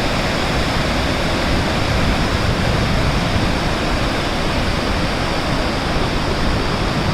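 Loud, steady rush of water from the Shivanasamudra waterfalls on the Kaveri River.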